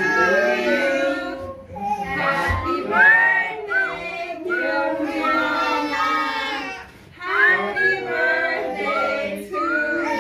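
A group of voices, children's among them, singing a birthday song together.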